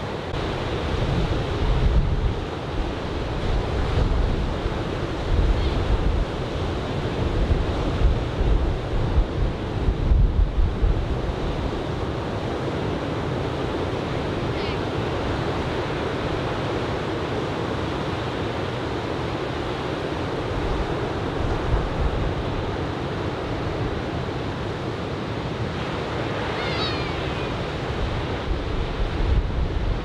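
Chest-high typhoon swell breaking on a sandy beach, a continuous wash of surf, with gusts of wind buffeting the microphone, strongest in the first ten seconds or so and again near the end.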